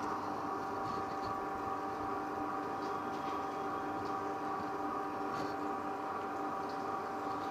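Small electric oil expeller machine running steadily as it presses nigella (kalonji) seeds: an even motor hum made of several steady tones.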